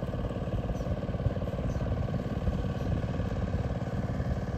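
A small engine running steadily at idle, with a fast, even chugging that does not change.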